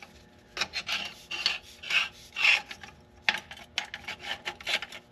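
Metal rubbing and scraping in short irregular strokes, with a few sharp clicks, as a new kickdown (second-gear) band is worked by hand around its drum inside a Dodge Ram's 47RE-family automatic transmission.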